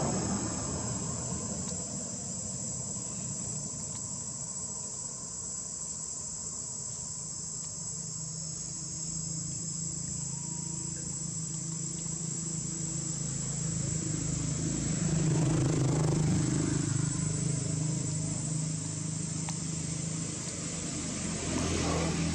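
Insects droning, a steady high buzz throughout. A low rumble swells about two-thirds of the way through and then fades.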